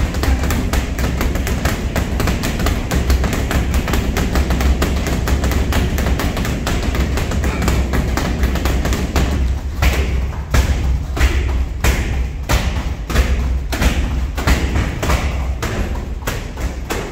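Gloved punches and kicks thudding on hanging heavy punching bags, with several people striking at once. The blows come in a rapid, overlapping flurry at first, then thin to more separate strikes about halfway through.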